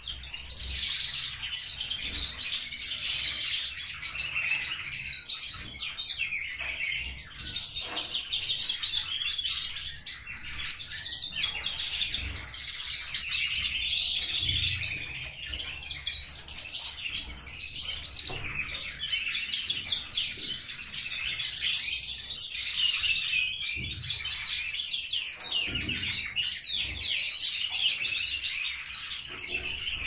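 Domestic canaries singing: a continuous, fast, warbling song of rolling trills and chirps with no pause.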